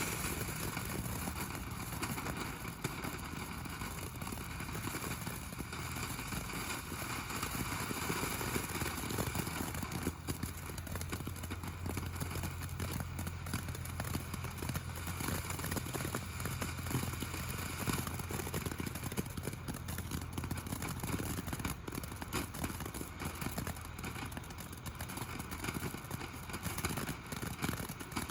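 Small ground firework fountain (Mighty Max Ladybug) burning: a steady hiss of spraying sparks with fine crackling.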